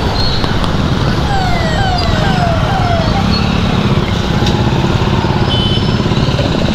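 Scooter riding through a slow traffic jam: engine and traffic noise, with wind on the microphone. About a second in, an ambulance siren gives four falling whoops.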